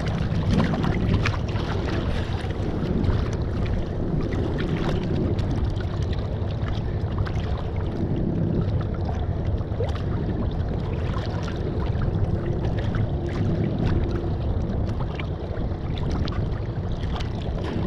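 Steady wind rushing over the microphone and choppy sea water sloshing close by, with a constant low rumble underneath.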